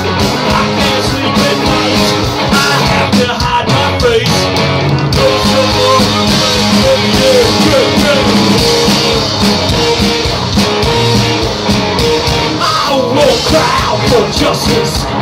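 Live garage-rock band playing loud, with electric guitars, keyboard and drums in a dense, driving groove.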